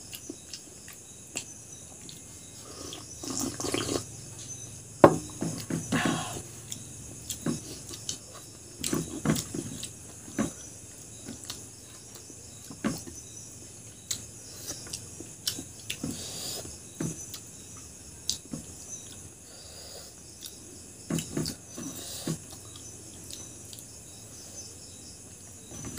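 Someone eating curry and rice by hand: fingers scraping and picking rice off a plate, with chewing and mouth sounds and scattered light clicks of fingers on the plate. A sharp click about five seconds in is the loudest sound.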